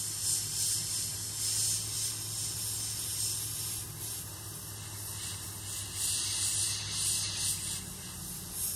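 Airbrush spraying paint at low air pressure, about 10 to 12 psi, as a steady airy hiss. It swells and eases in short passes as the spray is feathered lightly over a stencil.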